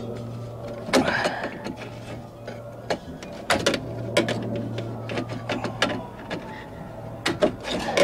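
Irregular sharp clicks and snaps of pliers working a plastic retaining clip on a door-handle linkage rod, breaking off a plastic tab to free the metal rod. The clicks come in clusters, about a second in, around three and a half seconds in, and near the end, over a steady low hum.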